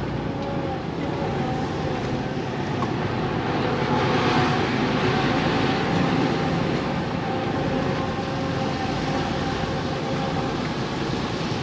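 A laden HGV lorry's diesel engine running steadily, with road noise as it drives along, growing a little louder about four seconds in.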